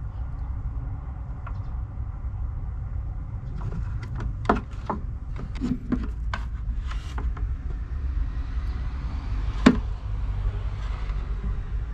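Electrical cables and their plastic connectors being handled on a wooden shelf, clicking and knocking several times over a few seconds, with one sharper click near the end, over a steady low rumble.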